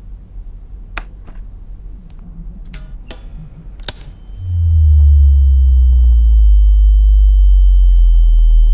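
A few sharp clicks, then about halfway through a loud, deep hum sets in and holds steady, with a faint high steady tone above it.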